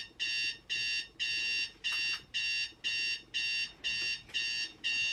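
Alarm clock beeping: a rapid, steady train of short high-pitched beeps, about two and a half a second.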